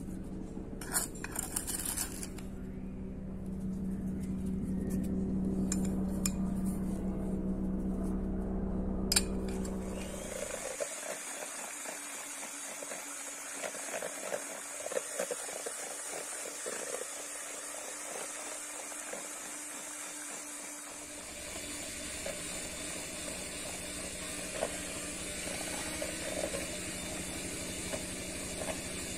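A few clinks of a spoon against the mixing bowl over a low steady hum. About ten seconds in, an electric hand mixer starts and runs steadily with a high whine, beating egg yolks and sugar.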